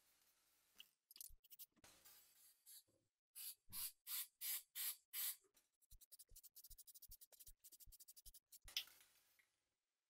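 Aerosol spray paint can: a series of short hissing spray bursts, then the can shaken hard so its mixing ball rattles in rapid clicks, and one more loud spray burst near the end.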